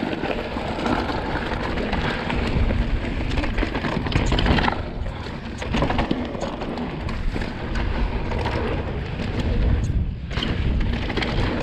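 A 2020 Vitus Sommet CRS mountain bike riding fast down a loose dirt trail: tyres running over dirt and gravel, with clattering from the bike and wind rushing over the camera microphone. The noise dips briefly about five seconds in and again near ten seconds in.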